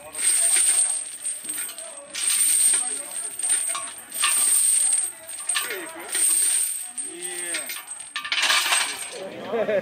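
Heavy steel lifting chains hanging from a loaded barbell clinking and jangling with each bench-press repetition, as the bar is pressed up and lowered. Five clattering bursts come roughly every two seconds.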